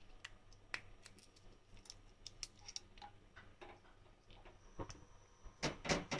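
Faint, scattered ticks and crackles from dried red chillies in a little hot coconut oil in a nonstick frying pan, with a few louder clicks near the end.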